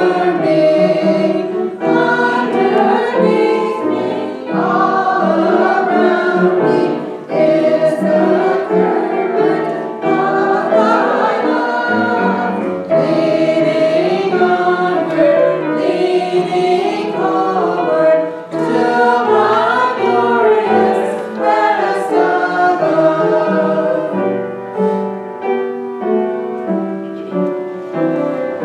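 Small church choir of mixed men's and women's voices singing together, sustained phrases without a break.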